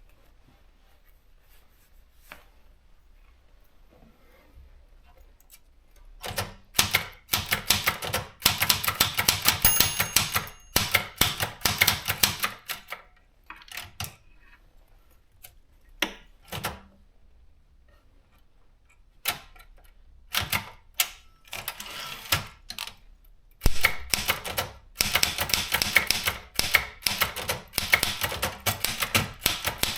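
Privileg JP 1 typewriter being typed on: type bars striking in quick runs broken by pauses. The first few seconds are quiet, with a few lone strikes in the middle and a long, dense run of typing near the end.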